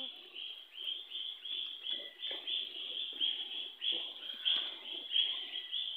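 A steady run of short, high chirping calls from night animals, about three a second and overlapping.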